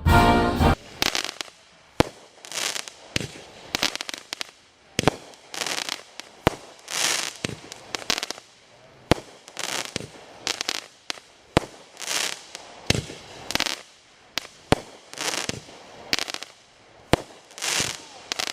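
A 12-shot 200g consumer firework cake firing: a sharp launch thump every two to four seconds, each followed by the shell bursting and a short noisy spell. A brief end of music is heard right at the start.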